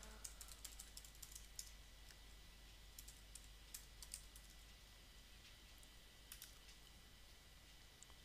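Faint computer keyboard typing: a quick, irregular run of key clicks over the first four seconds, then a couple more clicks about six seconds in.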